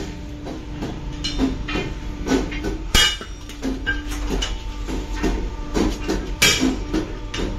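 Sledgehammer blows on steel truck leaf-spring leaves as they are bent and fitted: irregular metallic knocks about twice a second, the loudest sharp clangs about three seconds in and again near the end. A steady machine hum runs underneath.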